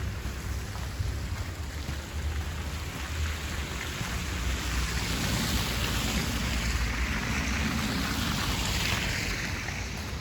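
Street traffic: a steady low rumble and hiss of road noise that swells for several seconds midway, as a vehicle goes past, then eases off.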